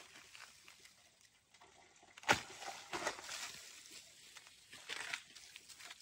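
A hand scraping and clawing at loose dry soil and rotten wood in an earth bank, with crumbling dirt rustling as it falls away. A sharp scrape comes a little after two seconds in, followed by more rustling around three seconds and again near five.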